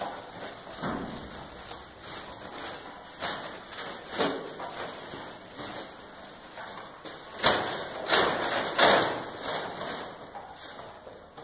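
A white flag on a stick waved and flapping, making irregular rustling swishes, the loudest three close together a little past the middle.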